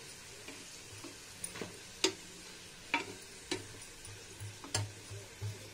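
A steel spatula clicking and scraping against a nonstick frying pan as a stuffed radish paratha is pressed and turned, with a faint frying sizzle underneath. There are a handful of sharp clicks, irregularly spaced.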